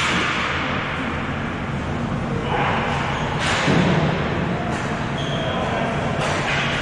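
Ball hockey game noise in a large hall: a steady rush of sound with a few sharp knocks and thuds from sticks and ball, the loudest a little past halfway.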